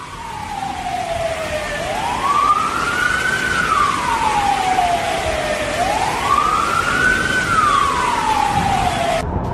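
A siren wailing slowly, its pitch rising and then falling twice, each cycle about four seconds long, over a steady hiss of rain. It cuts off suddenly shortly before the end.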